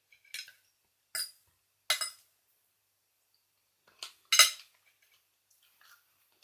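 A few short clinks of hard things knocked against a plate during a meal of raw oysters, about six in all, the loudest about four and a half seconds in.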